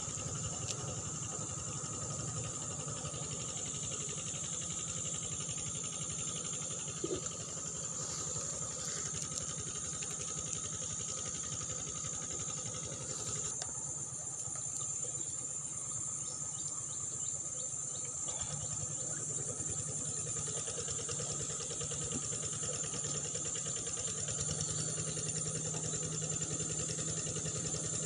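Steady chorus of crickets and other insects shrilling high and unbroken, over a low steady hum.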